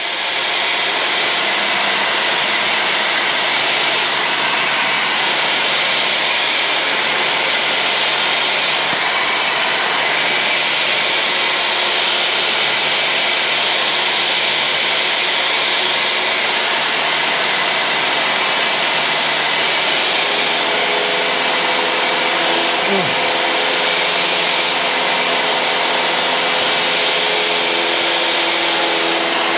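Steady cockpit noise of a 1978 Cessna 172N in flight, engine, propeller and airflow together, heard as a loud, even hiss with faint steady engine tones through the headset intercom feed. About two-thirds of the way through, a few lower steady tones come in, with a short rising-and-falling tone a little later.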